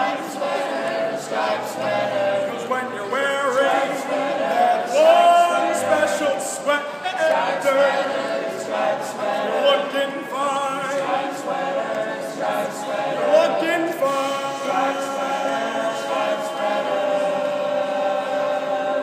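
A group of voices singing a cappella together, holding and shifting sung notes with no instruments.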